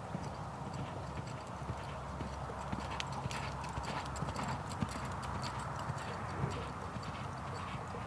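Horse's hooves clip-clopping in a quick, uneven run of hoofbeats, thickest in the second half, over a steady low hum.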